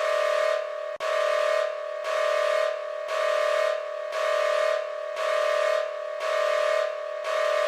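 Electronic emergency alert attention tone: a buzzy steady chord that pulses, swelling and brightening for about half a second roughly once a second.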